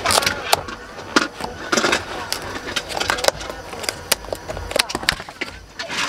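Plastic takeout food tray being handled, crackling with irregular sharp clicks.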